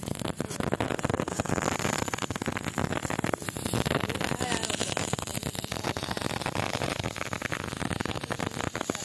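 Electric arc welding: the arc crackles and sizzles continuously as a bead is run on steel, a dense, irregular stream of sharp pops.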